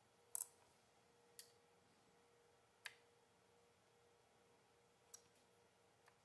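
Near silence broken by a handful of light clicks and taps as multimeter test probes are touched to the metal terminals and plastic housing of a hybrid power relay assembly.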